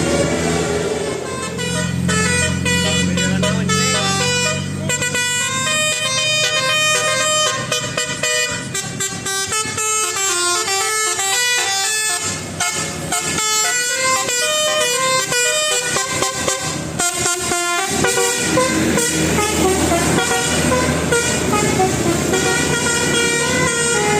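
Indonesian bus 'telolet basuri' multi-tone air horn playing a fast melody, its notes stepping up and down in quick succession. It is loud throughout, with a low steady hum under the first few seconds.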